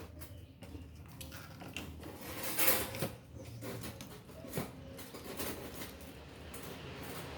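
Irregular clicks, taps and short scrapes of small parts and tools being handled while an electric fan's motor and shaft are worked on by hand, with two louder knocks a few seconds apart.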